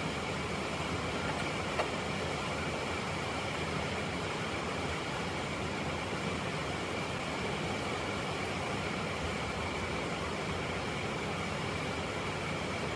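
Steady mechanical hum and hiss with a faint constant high tone, and one small click about two seconds in.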